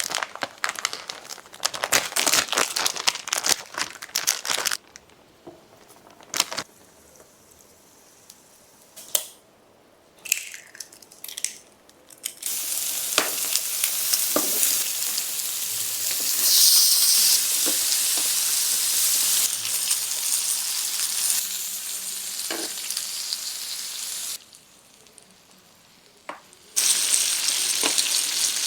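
Food frying in a hot pan: a dense crackle for the first few seconds, then a steady sizzle for about twelve seconds, then another sizzle near the end. Quieter gaps between them hold a few sharp clicks.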